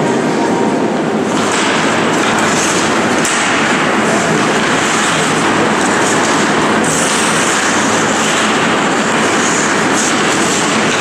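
Background music cuts off about a second in, giving way to a loud, steady, noisy din of ice hockey play in an indoor rink.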